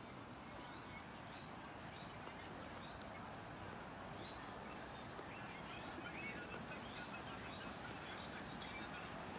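Birds chirping with short, repeated calls over a steady high-pitched insect drone, against a faint, even rushing hiss of outdoor ambience.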